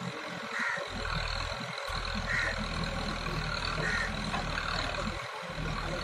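Diesel engines of a backhoe loader and a Swaraj 744 FE tractor running steadily while the backhoe swings its bucket over the tractor trolley to load soil. The low engine hum fills in about a second in.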